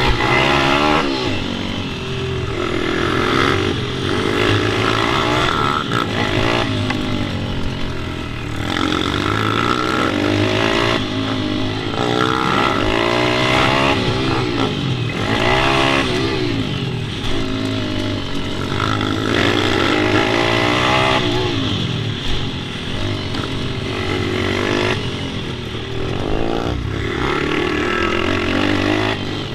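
Pit bike engine being ridden hard, revving up and easing off again and again, its pitch climbing and dropping every few seconds.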